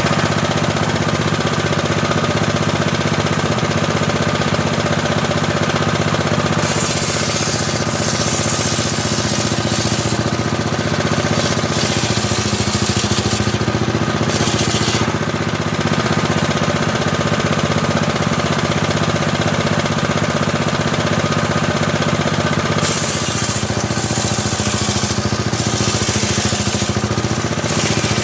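Homemade table saw running steadily, with a harsh hiss each time the blade rips through teak: several cuts from about a quarter of the way in to halfway, and again near the end.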